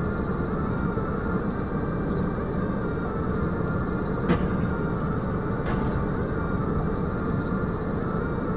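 Steady rumble of a car's engine and road noise picked up by a dashcam inside the cabin, with a short sharp knock about four seconds in and a fainter one over a second later.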